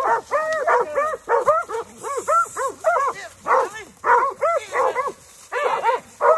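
Coonhounds baying a raccoon at close range: fast, overlapping barks from more than one dog, with a brief lull about five seconds in.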